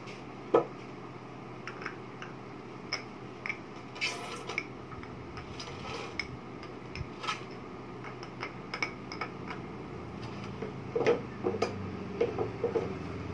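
Light knocks, taps and rubbing of carved wooden statues being handled and set down on a table, scattered short clicks with one louder knock about half a second in, over a steady low hum.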